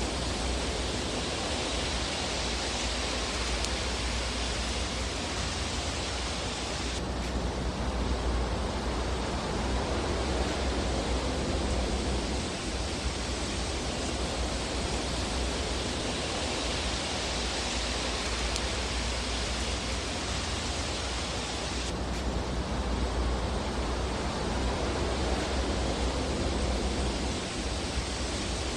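Fire burning in a fireplace, heard as a steady rushing hiss over a low rumble. The hiss swells and fades in a cycle that repeats about every 15 seconds.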